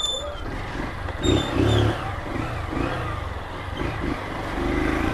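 Motorcycle engine running at low speed, heard from the rider's seat, swelling briefly about one and a half seconds in. A couple of short high chirps sound near the start and just over a second in.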